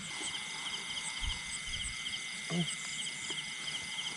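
Chorus of insects: a steady high-pitched drone with short chirps repeating several times a second, and one brief low call about two and a half seconds in.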